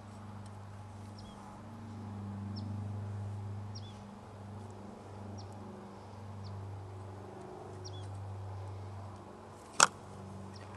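A bird giving short, high, downward-sliding chirps about once a second over a steady low hum. A single sharp click, the loudest sound, comes near the end.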